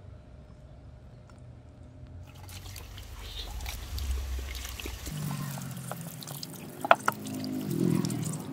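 Water from a garden hose spraying and splashing onto a flat steel axe head, starting about two seconds in, as the etching residue is rinsed off the metal. A sharp knock about seven seconds in is the loudest sound, and a hand rubs the wet blade near the end.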